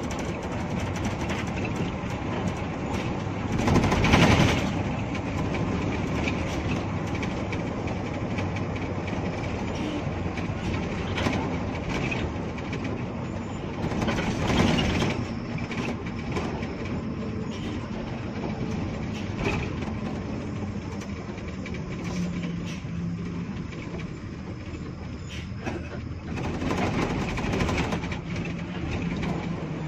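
Cabin noise of a Hino RG bus under way: the engine running under a steady din of body rattles and clicks. The noise swells louder three times.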